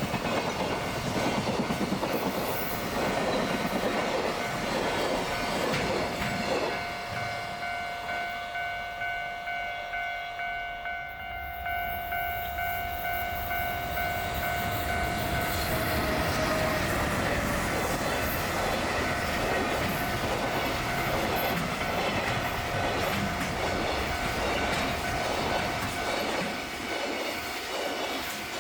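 Freight train wagons passing, their wheels clattering in a steady rhythm over the rail joints. About seven seconds in the clatter drops away and a level-crossing warning bell is heard ringing in even, repeating strokes. From about halfway, train wheels clatter past again.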